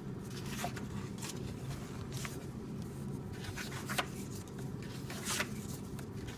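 Pages of a glue-bound paperback coloring book being turned and handled: several short paper swishes and rustles, a few of them sharper than the rest, over a low steady hum.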